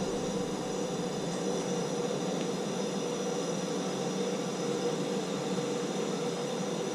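Gas torch flame burning with a steady hiss, heating a shower valve body inside the wall.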